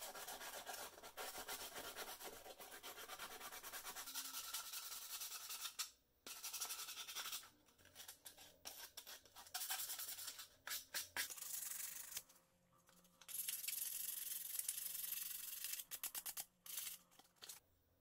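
Abrasive rubbing, like sanding or scrubbing a part by hand: fast scratchy strokes in several long bursts, broken by short pauses about six, eight and twelve seconds in and again near the end.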